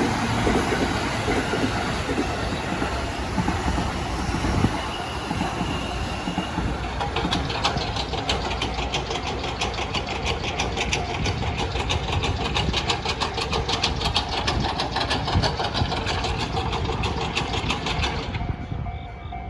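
A train running through a level crossing: a steady rush of wheels on rail, with a fast, even clatter of wheels over the rail joints from about seven seconds in that stops suddenly near the end as the train clears. The crossing's warning bell is then heard ringing in a pulsing tone.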